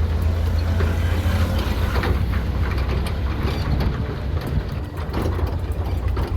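Heavy engines running with a steady low rumble, with scattered knocks and clanks over it.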